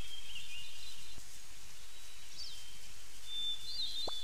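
Nature ambience: small birds chirping now and then, high-pitched, over a steady outdoor background hiss.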